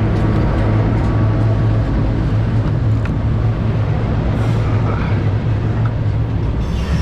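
Train crossing a railway bridge overhead: a steady, loud, low rumble of wheels and cars on the span.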